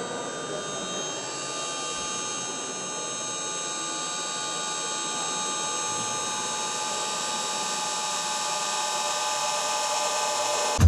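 Electronic music from a DJ set: a dense, hissing synth drone with many held high tones, slowly growing louder.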